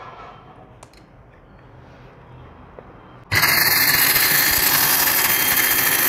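Sujata 900-watt mixer grinder grinding whole turmeric roots in its steel jar. It starts abruptly about three seconds in and runs loud and steady under heavy load. Before that there is only faint handling with a few light clicks.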